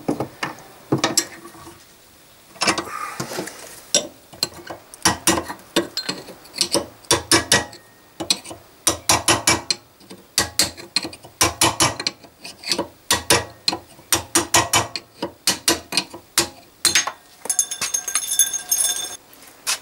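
Steel-on-steel hammer blows on a chisel, tapping a seized needle-bearing race out of a steel suspension arm held in a vise. The strikes come in quick clusters with a metallic ring after each, and a brighter metallic jingle near the end as the race comes free.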